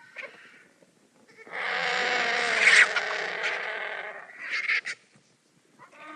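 Vultures squabbling over food: a long, harsh, hissing rasp starts about a second and a half in and is loudest near its middle. A short rasp follows, and a higher, pitched call begins near the end.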